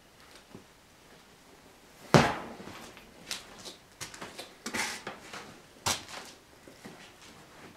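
Wooden knocks and thumps inside an old board cabin: one loud thump about two seconds in, then several lighter knocks and a short scrape, such as a plank door and floorboards make when handled and walked on.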